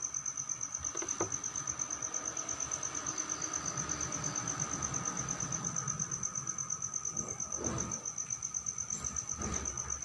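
An insect's steady high trill, pulsing about eight times a second, over a fainter steady lower tone. A few soft rustles come near the end.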